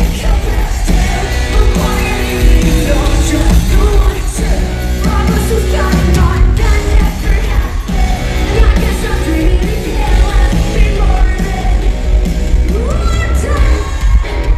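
Live rock band with a female lead singer over electric guitars, bass and drums, recorded from the arena audience with a heavy low end.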